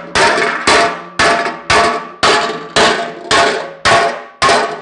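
Hand hammer striking a metal tool held against a dented sheet-metal tractor air cleaner cap to straighten it: about nine steady blows, roughly two a second, each ringing metallically.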